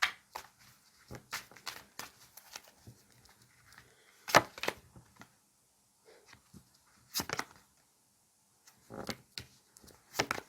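Tarot cards being handled and shuffled: scattered soft rustles and short sharp snaps of card stock, the loudest about four seconds in, another about seven seconds in, and a cluster near the end.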